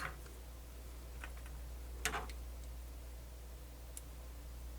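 A few light clicks and taps as the small planetary gears of a cassette deck's sliding front-panel mechanism are handled, over a steady low hum.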